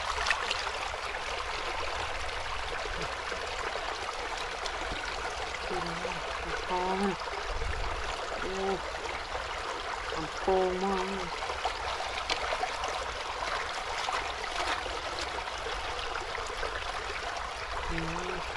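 Steady rushing of running water, with a few short hums of a woman's voice in the middle and faint clicks of eggs being handled.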